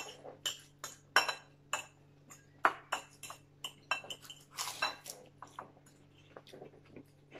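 Forks and spoons clinking and scraping against china plates and bowls in short, irregular clicks, mixed with the sounds of eating, over a faint steady hum.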